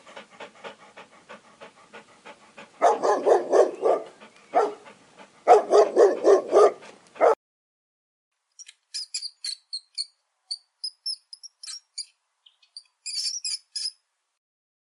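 A dog barking in quick runs of rapid barks, two of them loud, that stop abruptly about seven seconds in. After a pause comes a scattered series of short, high-pitched squeaks.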